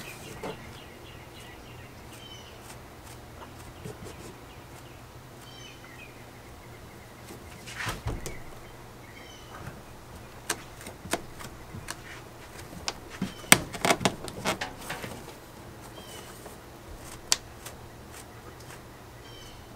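Scattered clicks, knocks and rustles of paracord and a stainless steel buckle being pulled and handled against a painted plywood boat floor, with a hand patting the deck. Faint bird chirps come and go in the background.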